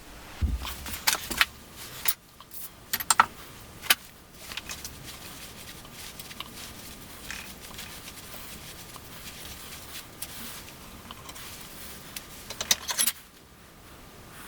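Metal clinks and knocks as a steel workpiece is handled in a bench vise and threaded by hand with a bottoming tap in a tap wrench. The clatter comes in the first few seconds and again near the end, with quieter small ticks in between.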